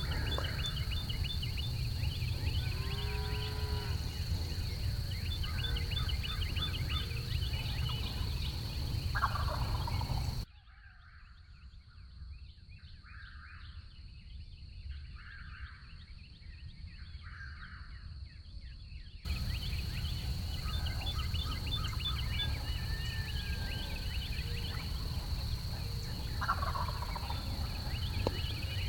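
Wild turkey gobblers gobbling out in the field, a few separate gobbles, with small birds chirping over a steady low rumble. The rumble drops away for several seconds in the middle, leaving the calls clearer.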